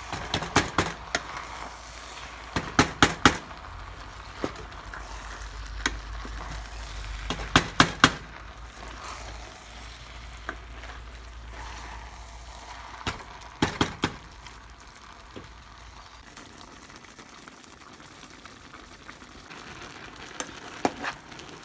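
Food sizzling in a cooking pot with a steady hiss, broken by clusters of sharp clicks and knocks from stirring, about five times.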